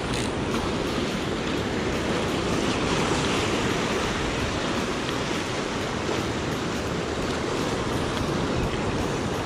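Ocean swell surging and washing over a rock ledge: a steady rush of surf.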